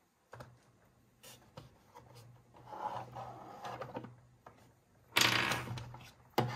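Hard plastic toy pieces being handled: scattered clicks, taps and short scrapes as a plastic Bluey figure is set into a shelf of a plastic playset, with one louder scrape lasting about a second a little after five seconds in.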